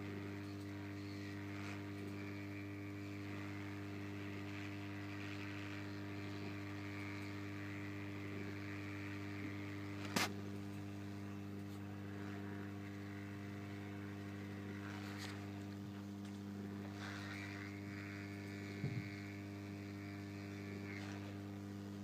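Hot-air soldering station running: a steady low electrical hum with a faint hiss of blown air, as the board is heated to melt the solder. One sharp click about ten seconds in, and a couple of fainter ones later.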